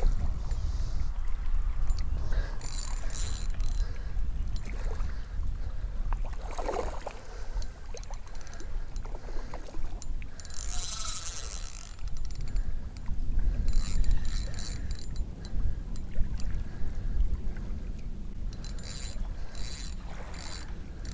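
Spinning reel cranked in short bursts while a hooked sea trout is played in, the fish splashing at the surface; wind rumbles on the microphone throughout.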